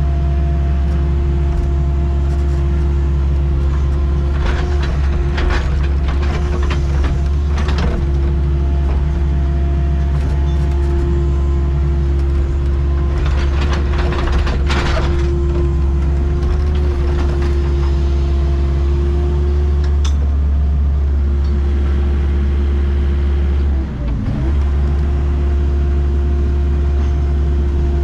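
Excavator's diesel engine running steadily with a constant tone over its low drone. Two spells of scraping and rattling come as the bucket works, one a few seconds in and one near the middle. The engine note dips briefly and recovers about six seconds before the end.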